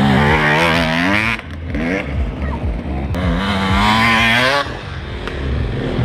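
Enduro motorcycle engines revving hard as two riders pass close one after the other, each a rising, wavering pitch that lasts about a second and a half; the second starts about three seconds in.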